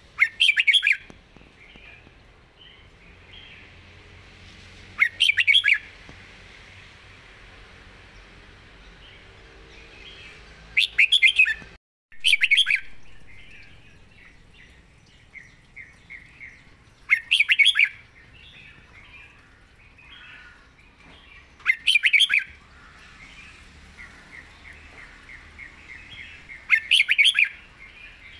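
Caged red-whiskered bulbul singing short, loud, clear song phrases about every five seconds, with fainter chirps between them.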